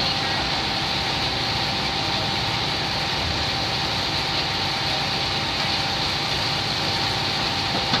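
A race car's engine idling steadily, heard from inside the cockpit, with a constant thin whine over it.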